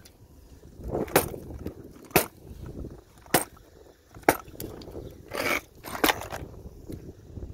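A Traxxas X-Maxx RC monster truck handled by hand: about five sharp clacks and knocks from its wheels and suspension as they are lifted, moved and let drop, with some rustling between them.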